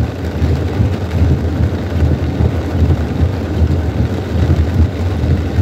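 Car cabin noise in heavy rain: a steady low rumble with the even hiss of rain on the car over it.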